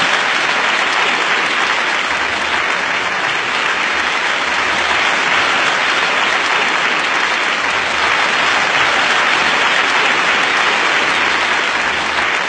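A huge crowd applauding, a steady and continuous mass of clapping.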